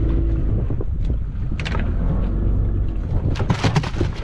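Low, steady rumble of a small fishing boat at sea with wind on the microphone. There is a sharp knock about one and a half seconds in and a quick run of knocks and rattles near the end.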